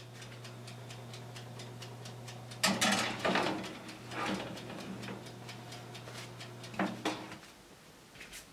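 Oven running with a steady low hum and a fast, even ticking, about five ticks a second. Metal clatter of the baking tray going onto the oven rack about three seconds in, another clank a little after four seconds and again near seven seconds, after which the hum cuts off.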